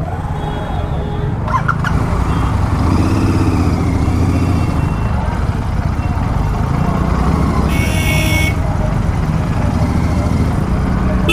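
A Royal Enfield Continental GT 650's parallel-twin engine running loud and steady through a Gursewak Big Shot aftermarket exhaust while the bike is ridden. A brief high-pitched beep sounds about eight seconds in.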